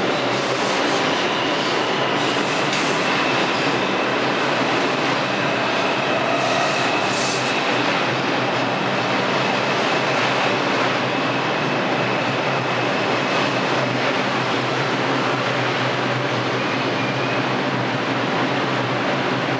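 New York City Subway R142 train pulling into the station and slowing to a stop, with a steady, loud rumble of wheels on rail and a thin high squeal of the wheels from about two seconds in until about fourteen seconds.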